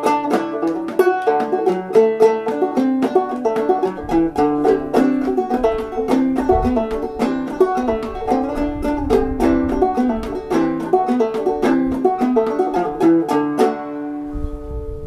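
Banjo played clawhammer style: a quick, steady run of plucked and brushed notes in an old-time tune. Near the end it stops on a final chord left to ring out.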